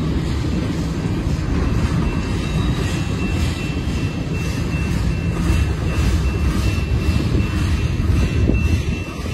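Freight train cars rolling past: a steady low rumble of steel wheels on rail with light repeated clatter. The cars are black tank cars followed by a flatcar loaded with lumber, and a faint thin high tone runs through the sound.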